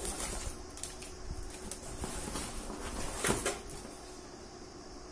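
Handling of packaging while items are taken out of a delivery box: light rustling with a few scattered knocks and clicks, the loudest clack a little over three seconds in.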